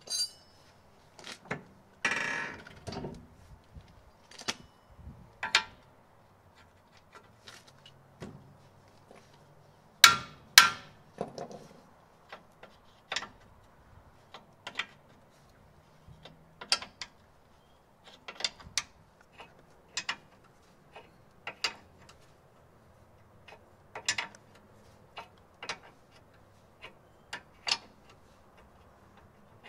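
Steel wrench working a bolt on the front suspension: short sharp metallic clicks and clinks about once a second. A longer scraping rattle comes about two seconds in, and two louder clanks come around ten seconds in.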